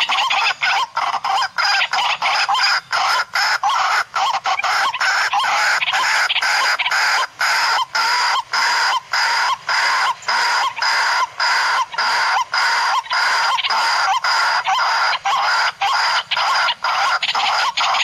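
Water hen (kurowak) call, repeated without a break at about two notes a second: the lure call played to draw the bird in.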